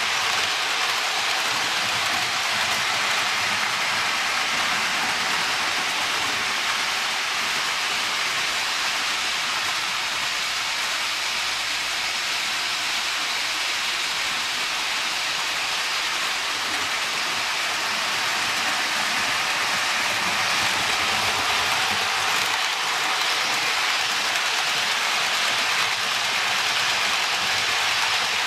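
Märklin HO-scale Thalys model trains running on metal track, a steady rolling hiss and rattle of wheels and motors. It eases slightly midway and swells again as a train passes near the end.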